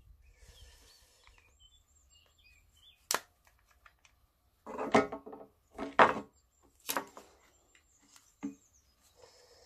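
A plastic fuel tank and engine housing knocking and clicking together as they are handled and fitted by hand: about five short knocks a second or so apart. Faint bird chirps in the background.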